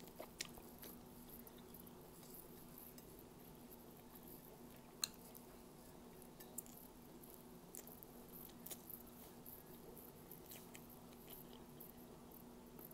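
Faint chewing and small mouth clicks of someone eating fried squid and rice by hand, with one sharp click about five seconds in, over a low steady hum.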